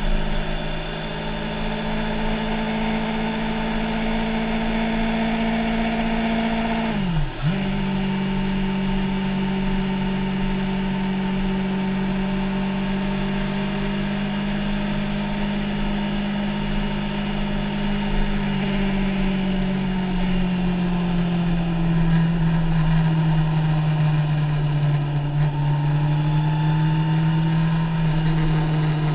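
Motorcycle engine running steadily while riding, heard from a camera on the handlebars. About seven seconds in, its pitch dips sharply for a moment and recovers, and from about two-thirds of the way through it slowly falls.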